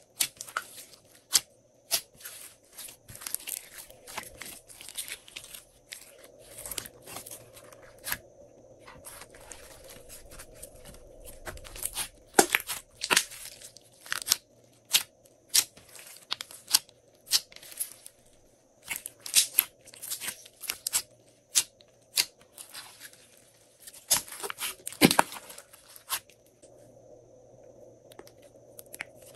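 Glossy slime being squeezed, pressed and stretched by hand, giving a run of sharp, wet clicks and pops, in clusters with a few short pauses.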